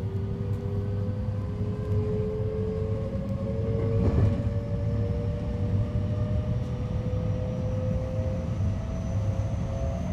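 JR 223 series electric train running under power: the Hitachi IGBT-VVVF inverter and traction motor whine slowly rises in pitch as the train gathers speed, over a steady rumble of wheels on rail. A brief louder rush comes about four seconds in.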